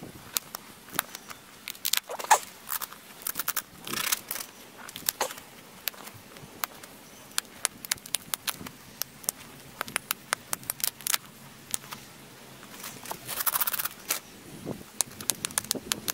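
A flint arrowhead being pressure-flaked with a hand-held, wooden-handled pressure flaker: irregular sharp clicks as small flakes snap off its edge. Two short runs of denser scratching come about four seconds in and toward the end.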